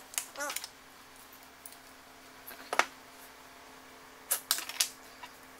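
Scattered small metal clicks and taps of a vernier caliper being set against a turbocharger's compressor wheel and the part being handled: a few clicks at the start, one sharp click about halfway through, and a quick run of clicks near the end, over a faint steady hum.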